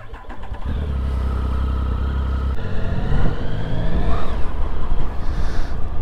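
Triumph Speed Triple's three-cylinder engine running at a steady low idle, then revving up as the motorcycle pulls away, its pitch rising about halfway through.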